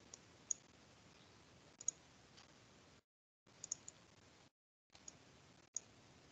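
Faint, scattered computer clicks, singly and in quick pairs, about nine in all. Under them is a low hiss that cuts out to dead silence several times, as a video call's noise gating does.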